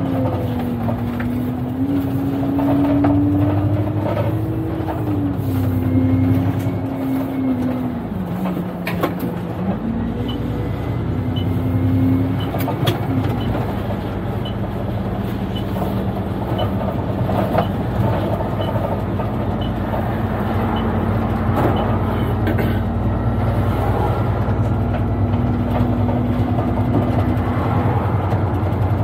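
Double-decker bus engine running, its pitch rising and falling for the first dozen seconds as it pulls, then holding steady and low. A light tick repeats about every 0.7 s through the middle.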